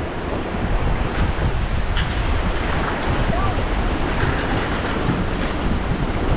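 Rushing river water around a raft, with wind buffeting the microphone as a steady low rumble.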